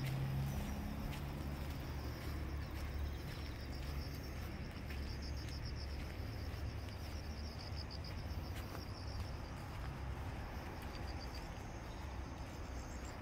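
Insects trilling steadily in a rapid high-pitched pulse, over a low outdoor rumble.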